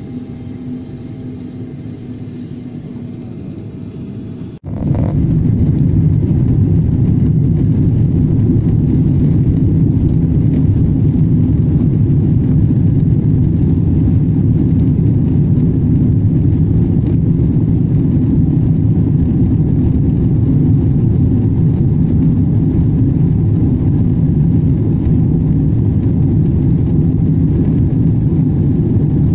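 Boeing 777-200 takeoff heard from inside the cabin: a steady, loud low rumble of the twin jet engines at high thrust. It starts abruptly about five seconds in, after a quieter stretch with a faint steady hum.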